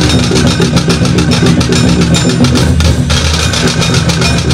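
Dhol-tasha troupe drumming: massed dhol barrel drums beating a fast, steady rhythm, with the sharp strokes of tasha drums over them.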